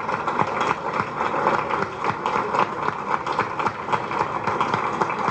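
An audience clapping steadily: dense, continuous applause from a room full of people.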